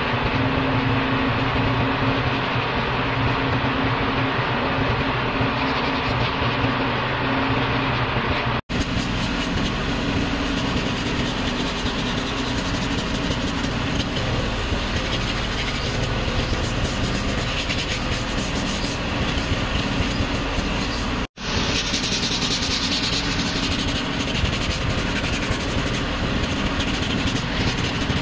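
Steady mechanical noise of machinery at work, with a low hum in the first part. It drops out abruptly twice for a split second, and its character changes after each break, turning hissier in the last part.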